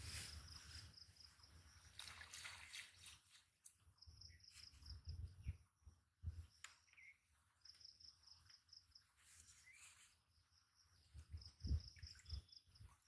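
Faint rural outdoor ambience with a small creature's high, beaded trill repeating about every three to four seconds, over a low rumble and a few low thumps, the loudest near the end.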